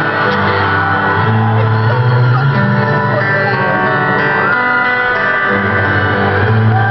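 Live rock band playing, with electric guitar and singing, and shouts over the music, heard from within a concert crowd.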